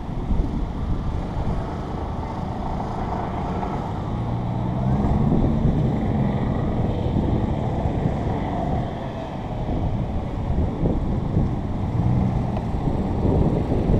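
Strong wind buffeting the microphone in gusts, with a steady low hum in the middle and again near the end.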